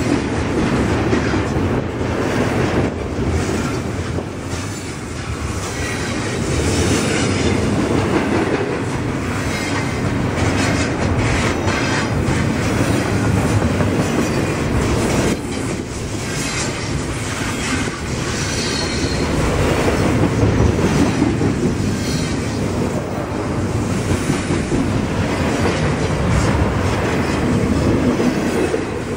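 Double-stack intermodal freight train's well cars rolling past close by: a steady rumble of steel wheels on rail with a rhythmic clickety-clack over the rail joints. At times a wavering high squeal from the wheels rides on top.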